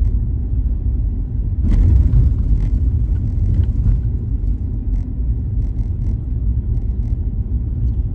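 Car driving along a road heard from inside the cabin: a steady low rumble of engine and tyres, swelling louder for about half a second around two seconds in.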